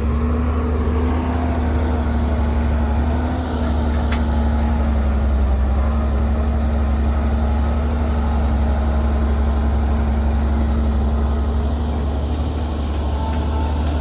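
Excavator engine running steadily, a constant low drone with a steady hum above it.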